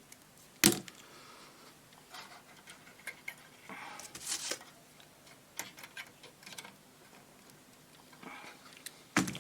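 Small hand tools and wire being handled: scattered sharp clicks and light rustling, with one loud click about a second in and another near the end.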